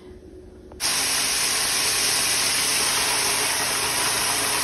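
A low hush, then about a second in a loud, steady sizzling hiss starts suddenly: flour-dredged chicken wings and thighs frying in a deep fryer's hot oil.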